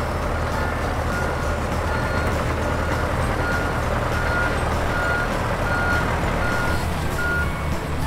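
John Deere 60G compact excavator running, its diesel engine humming steadily while its motion warning alarm beeps regularly, a single high beep a little more than once a second.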